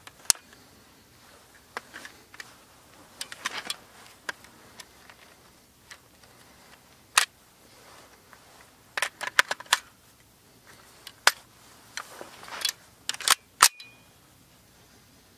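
Metallic clicks and clacks of an AKS-74U rifle being handled, its action and magazine worked by hand. They come singly and in short clusters, with a quick run of clacks about nine seconds in and another pair near the end, amid soft rustling.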